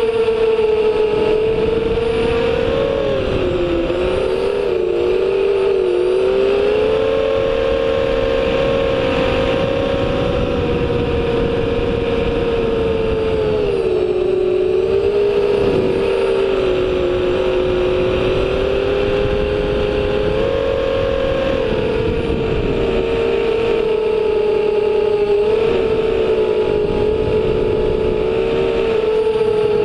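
FPV drone's electric motor whine picked up by its onboard camera, a steady high tone that dips and rises in pitch with throttle, a few times over the flight, over a constant rush of wind.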